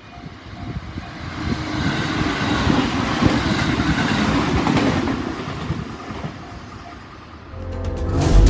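A train passing a level crossing. Its noise builds over about two seconds, holds, then fades away, with the crossing's warning bell ringing at the start. Music comes in near the end.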